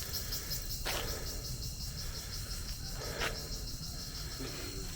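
Insects chirping in a steady, rapid, high-pitched pulsing chorus, with two faint knocks, about a second in and about three seconds in.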